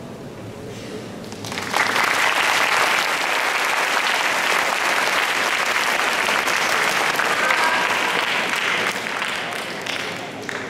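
Audience applause that starts suddenly about two seconds in, holds steady, and dies away near the end.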